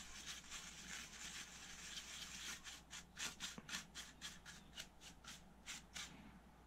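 Faint, quick repeated strokes of a dry paintbrush's bristles swept over a graphics card's circuit board, brushing off dust.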